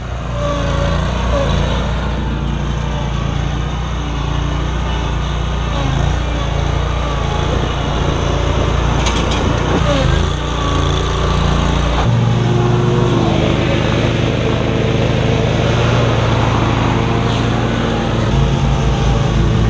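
Exmark stand-on zero-turn mower's engine running steadily as it is driven across the lawn. Its note shifts lower a little past halfway and then holds.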